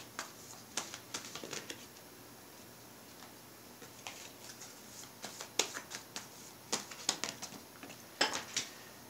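A deck of oracle cards being handled and shuffled by hand: scattered light clicks and flicks in short clusters, with a lull about two to four seconds in.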